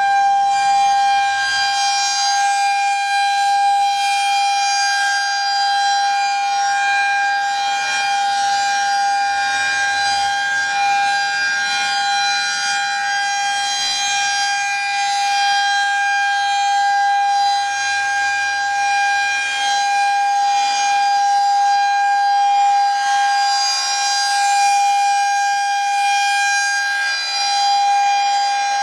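Federal Signal 2001-SRN electromechanical warning siren sounding a loud, high-pitched steady tone, the alert signal of a siren test. The pitch holds level throughout, with slight swells in loudness.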